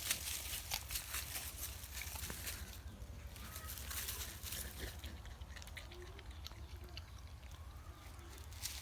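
Porcupine chewing bamboo: a quick run of crisp crunching clicks, dense for the first five seconds and thinning out after, over a steady low hum.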